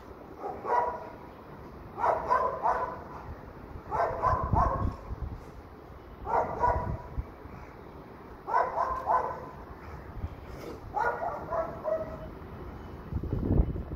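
Rottweiler barking in short runs of two or three barks, a run about every two seconds.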